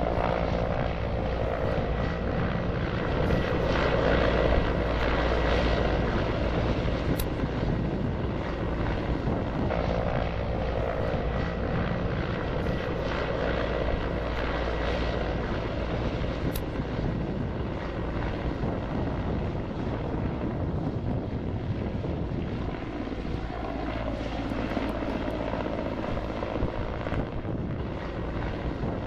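Helicopter in flight: a steady rotor and engine drone whose tone swells and fades a few times as it passes back and forth.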